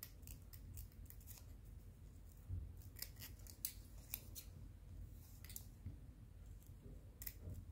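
Scissors snipping at a feather, trimming the edges of its spine: a scattering of faint, short, irregular snips spread over several seconds.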